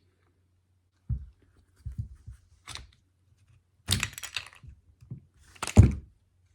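Plastic housing of a cordless impact driver being pried and twisted apart by hand: a run of irregular plastic clicks, cracks and knocks, the loudest near the end.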